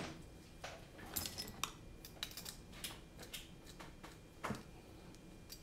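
Faint, scattered small clicks and clinks of metal screws and standoffs being handled and fastened onto a carbon-fibre drone frame.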